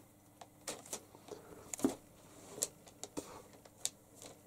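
A cat moving across a cluttered desk: scattered rustles of paper and short taps and soft thumps from its paws, with a faint steady hum behind.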